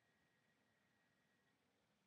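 Near silence: faint hiss, with a very faint, thin, steady high tone that fades out about one and a half seconds in.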